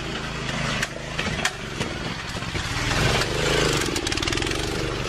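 Walk-behind tractor's small engine running, rising in pitch about three seconds in, with a few sharp knocks and clatter.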